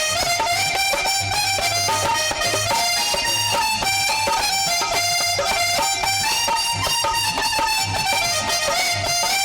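Instrumental interlude of a Hindi devotional bhajan: a harmonium plays the melody in sustained reedy notes over a steady low drum beat.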